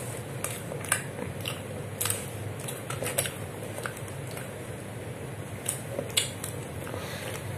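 Fingers picking and tearing at a grated-cheese-topped chocolate brownie on a plastic wrapper: scattered sharp crinkles and clicks from the wrap and crumbs. A steady low hum lies under them.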